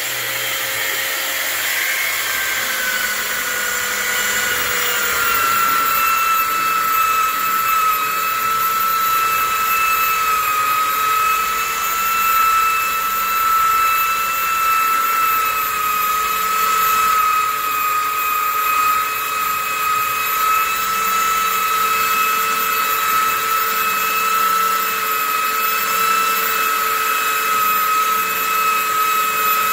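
Skil electric belt sander running against a wooden stool seat: a steady motor whine with sanding noise. Its pitch settles slightly lower over the first few seconds, then holds steady.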